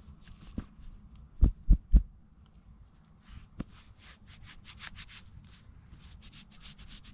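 Hands unfolding a moist towelette and rubbing it over the fingers, with soft rustling and crinkling in many short strokes. Three loud, dull thumps come close together about a second and a half in.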